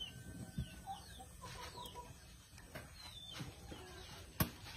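Chickens clucking and chirping faintly, with one sharp click near the end.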